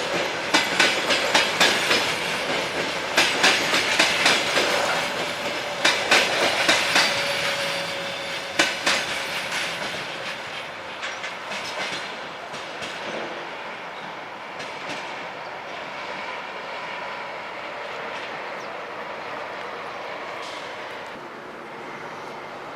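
New RIC-gauge passenger coaches of a train rolling past, their wheels clacking over rail joints in quick clusters. The clacking thins out and the rolling noise fades away from about eight seconds in as the train moves off.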